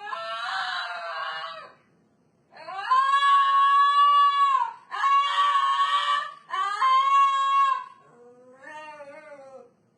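A pet animal's long, drawn-out howling calls, five in a row. The three middle calls are held steady for a second or two each, and the first and last are shorter and waver in pitch.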